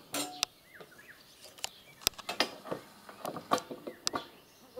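A chunk of split wood used as a mallet knocking on the swing's log crossbeam: a run of sharp, irregular knocks, about eight of them, with faint bird chirps behind.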